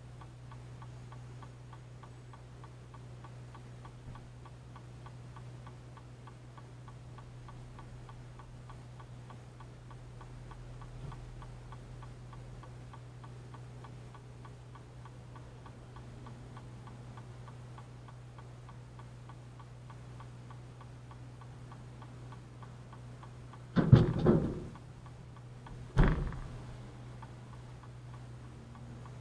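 Steady, regular ticking over a constant low hum, broken near the end by two loud thumps about two seconds apart.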